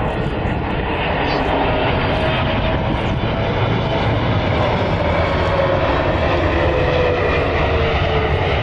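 Boeing 777-300ER's GE90 turbofans on final approach: a steady jet rumble with a whine that slowly falls in pitch as the airliner passes close by, just before touchdown.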